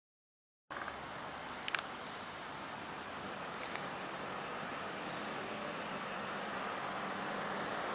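Night-time insect chorus, crickets chirping: a steady high trill with a pulsed chirp repeating regularly, starting under a second in. One brief click nearly two seconds in.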